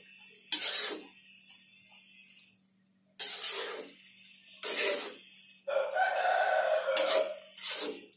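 Metal spatula scraping against a large metal pot as a vegetable curry is stirred, in several short, loud scrapes. From about six seconds in, a long pitched call lasting about a second and a half sounds in the background.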